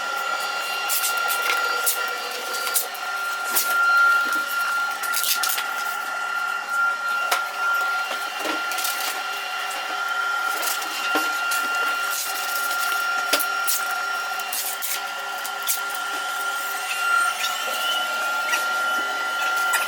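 A workshop machine running with a steady high whine, with scattered clicks and knocks throughout.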